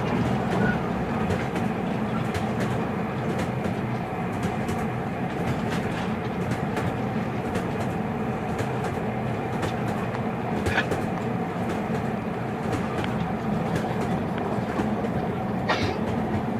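Steady rolling rumble inside a moving train carriage, with faint scattered clicks and a brief higher squeak about eleven seconds in and again near the end.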